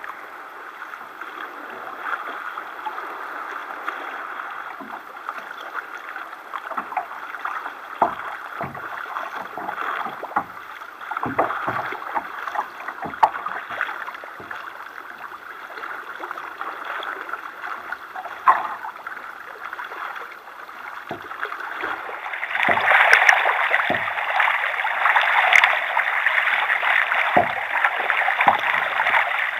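Sea kayak being paddled through choppy water: water rushing and splashing along the hull, with scattered short knocks and slaps from the paddle strokes. The water noise grows clearly louder about three quarters of the way through.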